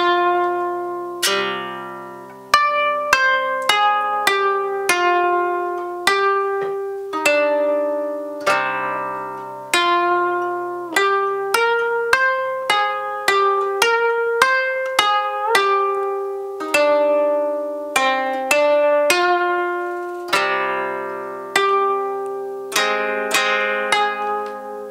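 Koto played unaccompanied: a slow melody of single plucked notes and occasional two-note strikes, each note ringing out and dying away, with one note bent upward by pressing the string about two-thirds through.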